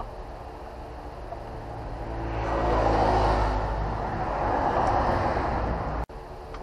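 A car's engine and tyre noise, swelling over a couple of seconds, holding, then cutting off suddenly near the end.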